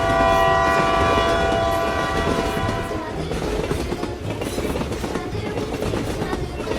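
Train horn sounding a steady chord for about three seconds, then the rumble and clickety-clack of a passing train.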